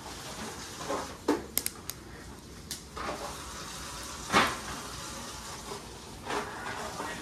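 Food sizzling on a hot tabletop hibachi grill, with dishes and utensils clinking now and then, the loudest clink about four seconds in.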